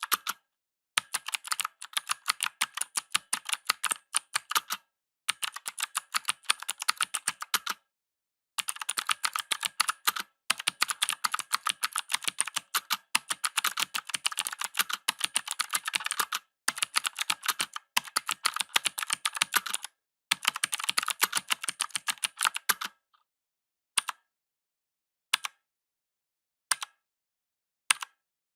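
Mechanical keyboard typing fast in runs of a few seconds with short pauses between them. Near the end the typing stops and single keys are pressed one at a time, about every second and a half.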